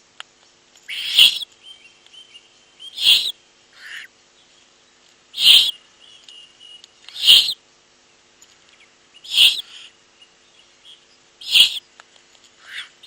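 Owlets giving hoarse, hissing begging calls: short bursts about every two seconds, with a couple of weaker, lower ones between.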